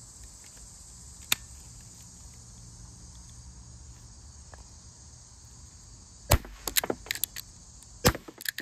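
Air rifle firing pellets: a single sharp crack about a second in, then a quick run of loud sharp cracks and clatter from about six seconds in, with another loud crack near the end. Crickets chirp steadily underneath.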